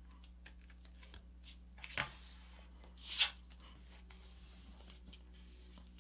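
A sheet of paper being folded and creased by hand: faint rustling and small ticks, with two short, louder swishes about two and three seconds in.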